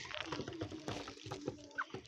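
Faint scattered clicks and small rustles of animals feeding, with one short rising high chirp near the end.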